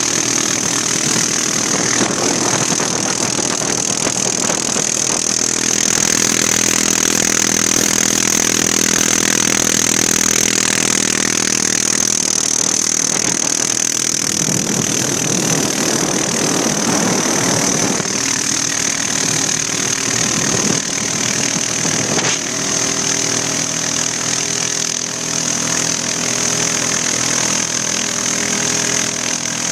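ATV engine running steadily while riding across lake ice, with a steady high whine above it and wind rushing on the microphone.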